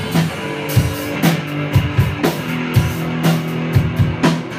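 A rock band playing live: a drum kit keeps a steady beat of about two hits a second under electric guitar.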